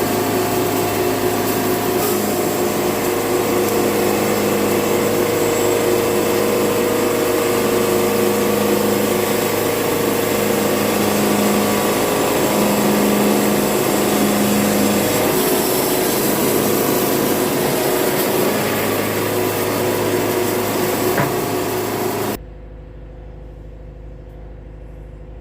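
Wood-Mizer band sawmill running under load, its blade cutting through a black walnut log. Near the end the noise drops suddenly to a quieter steady hum.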